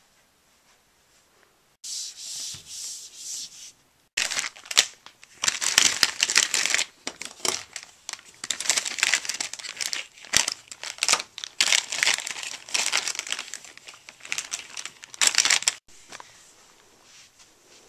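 Clear plastic zip-top bag being crinkled and rubbed close to the microphone: dense, rapid crackling in bursts. It starts about two seconds in, pauses briefly, then stops abruptly shortly before the end.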